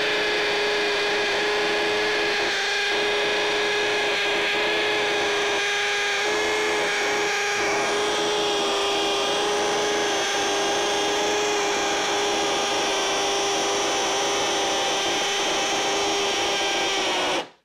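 Ryobi 18V ONE+ HP brushless hammer drill in hammer mode on speed 2, boring a half-inch hole into a concrete block. It runs under load without a break, with a steady whine of even pitch, and cuts off abruptly just before the end.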